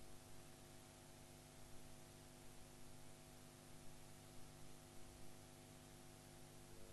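Near silence: a faint, steady electrical hum with a few steady tones and even hiss.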